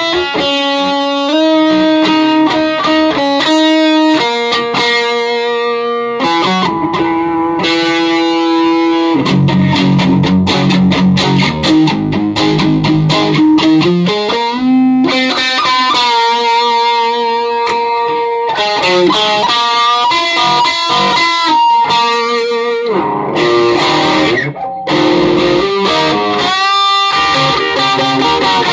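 Home-built electric guitar with Alnico pickups played through a Peavey Classic 50 tube amp with some gain dialled in: a lead line of single notes, many of them held and sustaining, recorded on a cell phone.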